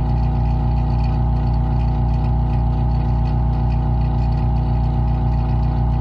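Vacuum pump running steadily, a constant low motor hum with steady higher tones above it, pulling a vacuum on a chamber to degas epoxy resin.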